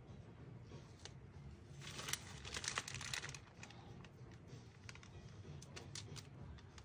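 Faint handling noises from hands working on a silicone doll laid on parchment paper: scattered light clicks and taps, with a louder rustle for about a second and a half starting around two seconds in.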